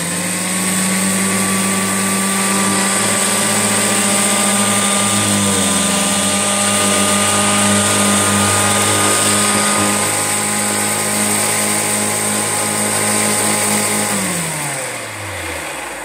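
Hoover 119 upright vacuum cleaner, nearly 70 years old, running very noisily while vacuuming carpet powder off a rug. Its motor gives a steady hum with a high whine over a hiss. About fourteen seconds in it is switched off and winds down, falling in pitch.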